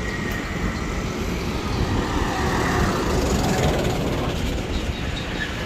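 Steady rumble and road noise of a moving vehicle, with a faint whine falling in pitch over the first few seconds.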